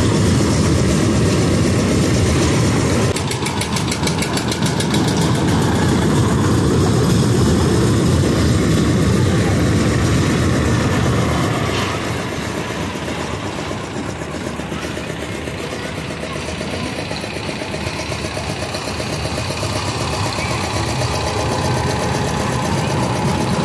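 Fairground kiddie toy train rumbling along its raised steel track, loud as the cars pass close by. It drops off about halfway through as the train rounds the far side of its loop, then grows louder again as it comes back.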